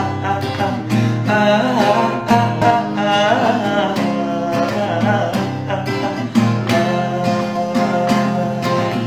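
A young man singing a pop melody over guitar accompaniment.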